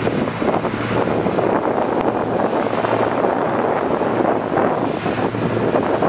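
John Deere T670 combine harvester running steadily while threshing wheat, with wind buffeting the microphone.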